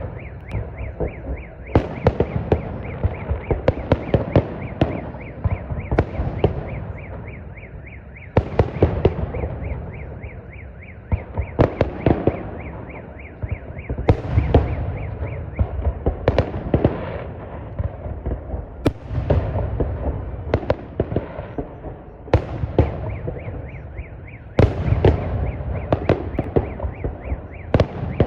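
Fireworks salute: sharp bangs of bursting shells in quick bunches every couple of seconds, with a rolling rumble and echo between them.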